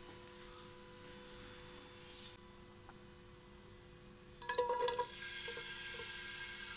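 A steel cooking pot clatters and rings briefly about four and a half seconds in over a faint steady hum. Then a soft, steady hiss starts, as sliced onions begin to sizzle in hot oil.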